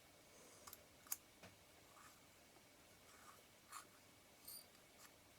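Near silence, with a few faint, sharp clicks, the loudest about a second in: small lens parts and tools being handled at a workbench.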